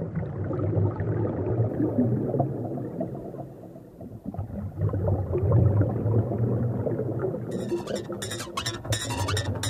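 Concert-venue ambience before a song: a steady low hum under a murmuring crowd, with bright, irregular sharp hits starting about three-quarters of the way in.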